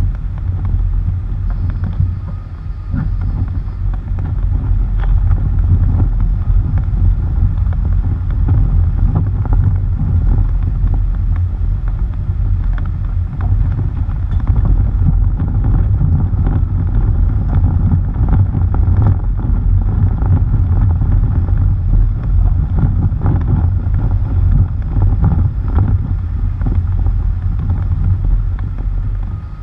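Tyres rolling over a gravel dirt road, heard close from the front bumper: a steady low rumble with frequent small clicks and ticks of stones, and wind buffeting the microphone. No engine noise stands out, as the vehicle is very quiet.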